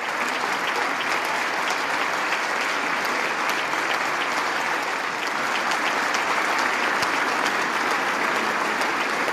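A large audience applauding steadily: dense, even clapping that holds at one level throughout.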